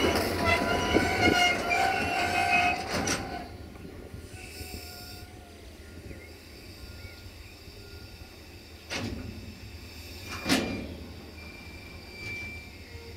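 Train wheels squealing on the rails as a train moves through the station, several steady high screeching tones that fade away about three and a half seconds in. Later come two sharp knocks about a second and a half apart.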